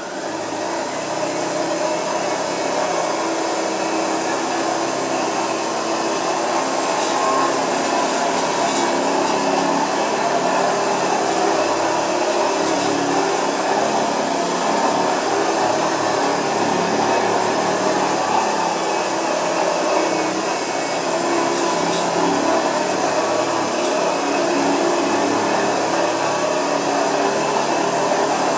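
Vintage 1930s Hoover 725 upright vacuum cleaner switched on, winding up over about the first second, then running steadily with a constant motor hum and rushing air.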